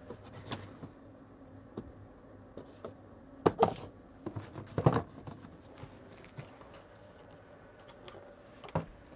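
A few scattered light knocks and clicks, the two strongest about three and a half and five seconds in.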